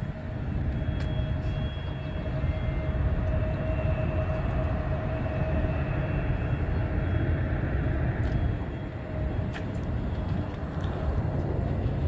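Steady low rumble of distant airport and road traffic, with a faint steady hum running through it.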